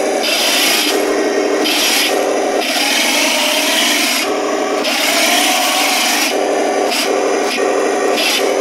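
1/16-scale Taigen RC M4A3(76) Sherman tank driving in several short spells. Its drive gearboxes and tracks whir noisily each time it moves, over the recorded engine sound from its onboard speaker, which rises in pitch while it drives. The main drive runs with good strong power.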